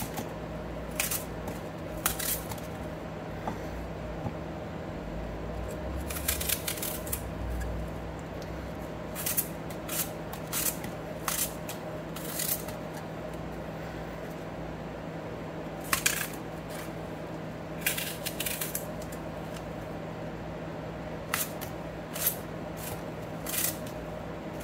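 Small knife cutting an apple into little pieces in the hand: short crisp snaps, irregular and a second or two apart, as the blade goes through the fruit, over a faint steady hum.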